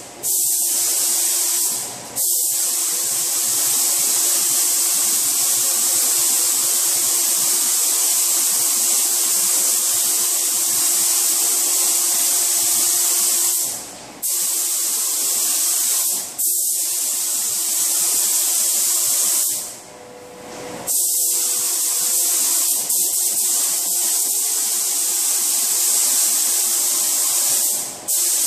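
Air-fed paint spray gun (a SATA) hissing steadily as it coats a car bumper cover in passes. The hiss cuts out briefly about five times as the trigger is released between passes, with the longest break a little after the middle.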